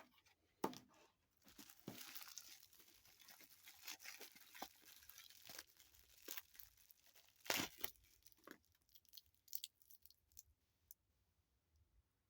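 Quiet crinkling and tearing of packaging being unwrapped by hand, broken by a few sharp clicks or knocks. It dies away about eleven seconds in.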